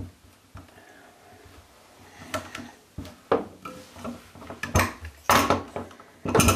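Metal tools clinking and knocking as a torque wrench with an extension turns a drain removal tool in a bathtub drain: about half a dozen sharp, irregular knocks, getting louder in the second half, while the old drain is being worked loose.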